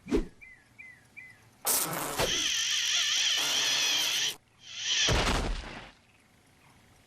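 Cartoon sound effects of an insect: three quick little chirps, a sudden burst, then an insect's wings buzzing steadily for about two seconds with a wavering pitch, and a short rushing sound about five seconds in.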